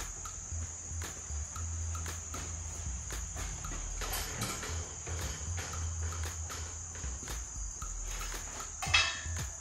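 Hydraulic engine hoist being worked with an engine hanging from it: light scattered clicks, then a sharp metallic clank about nine seconds in, over a steady high-pitched whine and a low hum.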